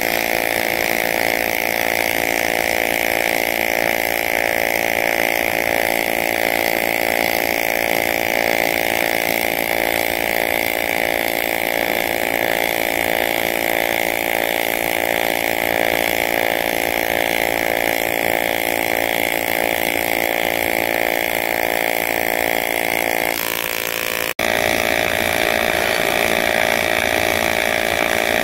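TIG welding arc on aluminium pipe, a steady buzzing hum. About three-quarters of the way through it dips briefly, then cuts to another stretch of welding with a slightly different tone.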